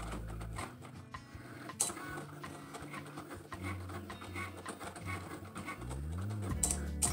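Cricut cutting machine cutting vinyl: its motors whir and buzz in changing pitches as the blade carriage moves back and forth and the mat feeds through, with a short rising whine about six seconds in and a few sharp clicks.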